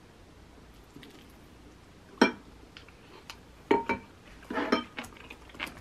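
A wooden spoon knocking and scraping against a glass bowl while scooping up rice, with a sharp clink about two seconds in and a few more short clatters with brief ringing about four and five seconds in.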